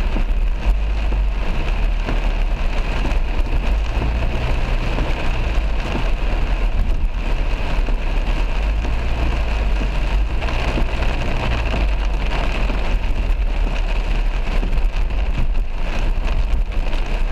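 Heavy rain beating on a car's windscreen and roof, heard from inside the moving car, over a steady low rumble of the car on the wet road.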